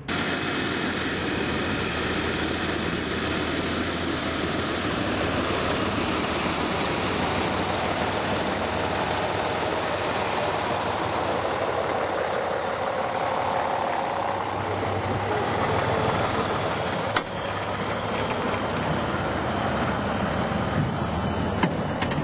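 Heavy off-road trial truck's engine running steadily as the truck crawls across rough ground, with one sharp knock about seventeen seconds in.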